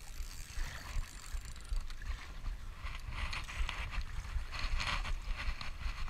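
Shallow water sloshing and splashing in irregular little bursts, denser in the second half, over a low wind rumble on the microphone.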